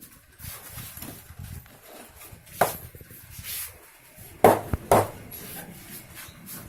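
Hand slaps on skin during a massage: three sharp smacks, one about two and a half seconds in and two more close together about a second and a half later.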